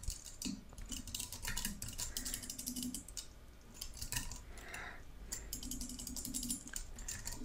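Computer keyboard keys clicking as a word is typed: quick runs of keystrokes with a short pause a little past the middle.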